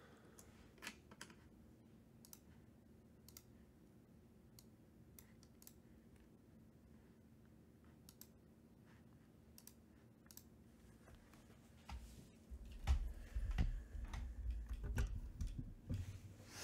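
Faint scattered clicks, then from about twelve seconds in a run of louder knocks and low thumps of things being handled.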